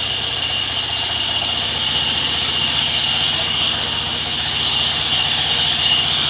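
Sawmill machinery running steadily: a constant low engine drone with an even pulse, under a steady high whine.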